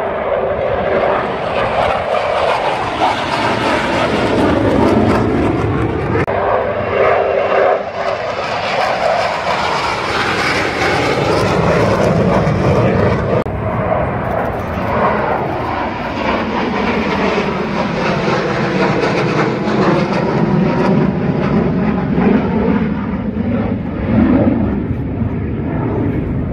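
Twin-engine jet aircraft taking off, a loud continuous jet roar whose tone shifts and sweeps as the aircraft moves past, cutting off abruptly at the end.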